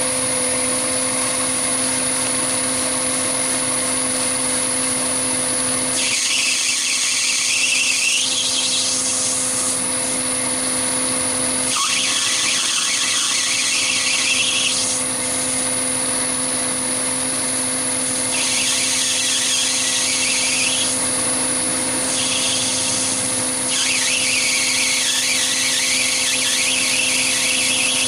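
Chinese mini lathe running steadily with a constant motor hum and a high electronic whine, while a turning tool cuts a brass bar. The cutting comes in about five passes, each adding a harsh high hiss for a few seconds.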